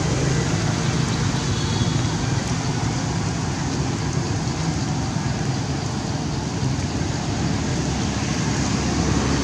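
Steady rushing background noise with a low rumble underneath, unchanging throughout, with no distinct calls or knocks standing out.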